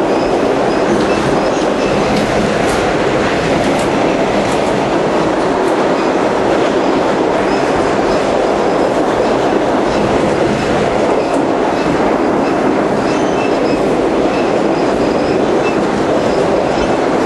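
New York City subway train running through a tunnel: a steady, loud rumble of wheels on rail, with a faint high squeal of wheels and scattered clicks over the rail joints.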